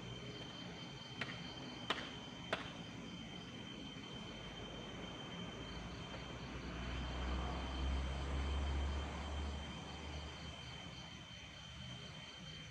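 Night insects, crickets among them, trilling steadily. Three sharp clicks come in the first few seconds, and a low rumble swells and fades in the middle.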